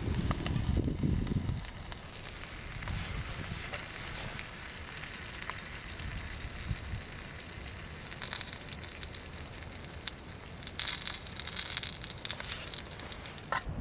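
Campfire crackling and hissing, with scattered small pops and one sharper crack near the end. A low rumble sits under it for the first second or so.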